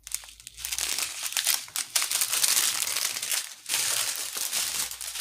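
Small plastic bags of diamond-painting drills crinkling and rustling as they are handled and sorted through, with a brief lull past the middle.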